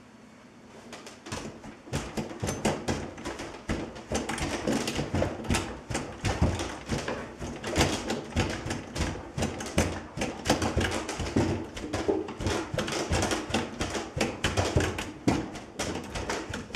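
Tenor saxophone rattling on its wall-mounted stand as the board it hangs on is shaken violently: fast, irregular knocking and clattering of the metal horn and its keys, starting about a second in.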